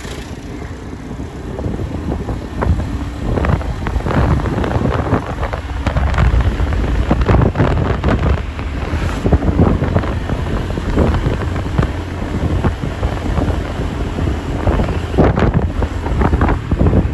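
Wind buffeting the microphone of a camera carried through the streets on a moving vehicle, over a low, uneven road and engine rumble.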